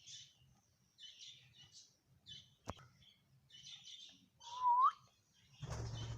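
Ringneck parrot chattering in short, high chirps, with one louder whistle rising in pitch about three-quarters of the way through. A single click comes near the middle, and a rustling noise with a low hum comes near the end.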